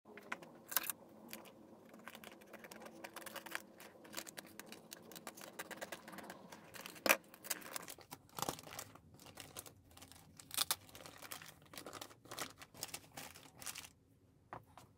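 Thin black plastic bin bag crinkling and crackling as it is pulled open and folded back by hand, with a few sharper snaps of the plastic.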